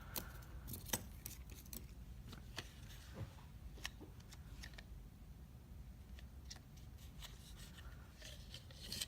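Faint, scattered light clicks and taps of small steel lock picks being handled and set against one another, about a dozen at irregular intervals.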